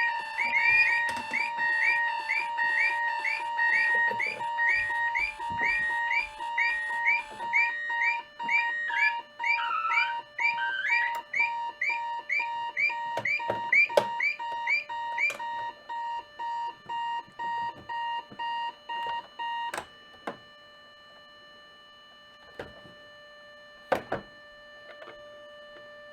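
Several vintage electronic alarm clocks and clock radios beep together in fast repeating pulses. They fall silent one after another as they are switched off, with sharp clicks among them, until the last beeper stops about twenty seconds in. A few more clicks follow near the end.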